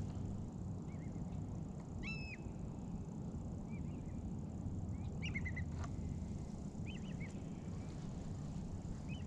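A steady low rumble of outdoor background noise, with short chirping bird calls every second or two. A single small click sounds a little past the middle.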